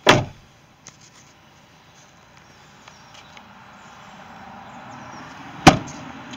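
Two doors of a Ford Ranger Super Cab pickup slam shut, one right at the start and one about five and a half seconds in. Between the slams a faint rushing noise slowly grows louder.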